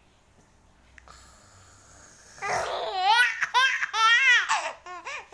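Baby laughing hard while being tickled: after a quiet start, a run of high, wavering giggles begins about halfway in and breaks into short laughs near the end.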